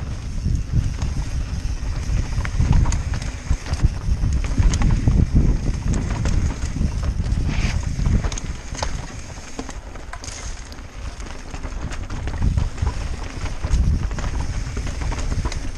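Mountain bike descending a rough dirt and rock trail: a low wind rumble on the microphone over the clatter of the tyres and bike on the rock, with many sharp knocks and rattles.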